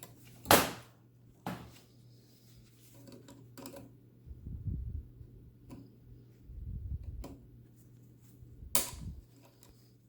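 Sharp metallic clicks and light handling knocks as the small retaining clip is worked onto the sightglass fitting of an Elektra Microcasa espresso machine. The loudest click comes about half a second in, another near the end, with a couple of low dull bumps in the middle.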